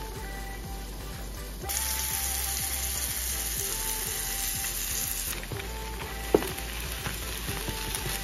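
Olive oil sizzling in nonstick frying pans as salmon fillets pan-fry and egg whites are scrambled with a spatula; the sizzle turns louder and brighter from about two seconds in to about five seconds, and a single sharp knock comes about six seconds in. Soft background music underneath.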